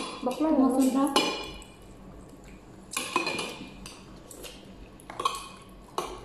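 Mealtime table sounds: spoons and shells clinking against ceramic plates and bowls. The loudest is a sharp clink with a short ring about a second in, followed by a few scattered clicks. A voice is heard briefly at the start.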